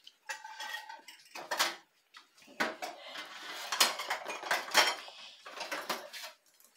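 Metal spoon scraping and clinking against a serving dish of thick doce de leite, a series of sharp strokes.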